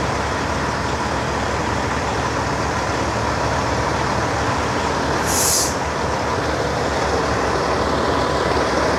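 Steady mixed rumble and noise of trucks at a truck show, with a brief sharp hiss about five seconds in, the loudest moment.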